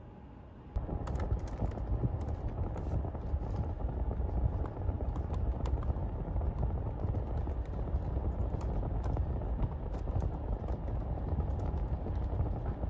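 Typing on a laptop keyboard: irregular key clicks over a steady low rumble that starts about a second in.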